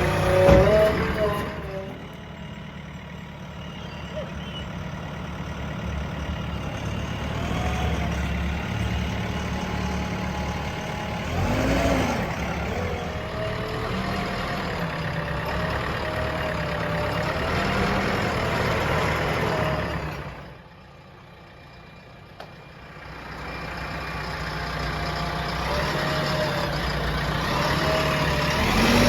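Diesel engines of a JCB 3DX backhoe loader and farm tractors running under working load. The pitch rises and falls as the machine revs to work its hydraulics. The sound drops away for a couple of seconds about two-thirds of the way through, then builds again.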